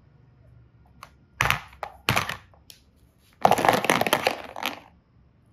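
Hard plastic toy containers knocking and clattering against a plastic basket: a couple of sharp knocks, then a longer rattling clatter of many small hits.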